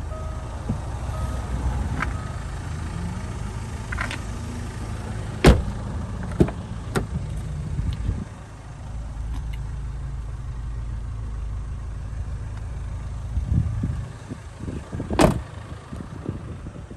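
A car door on a Range Rover Evoque shutting with a loud thud near the end, after several sharper clicks and knocks from the car's interior. A steady low rumble runs underneath, and a short beeping stops about a second and a half in.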